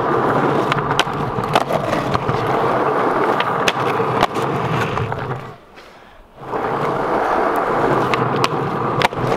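Skateboard wheels rolling over rough asphalt, a steady grinding rumble with sharp clacks from the board. A little past the middle the rolling drops out for about a second, then starts up again.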